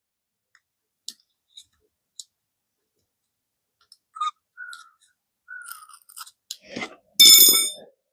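Strip of fine sandpaper being fed through and rubbed against the contacts of a motorcycle fuel-level sending unit to scour off corrosion. A few light clicks come first, then short rasping scrapes, and a loud squeaky scrape about seven seconds in.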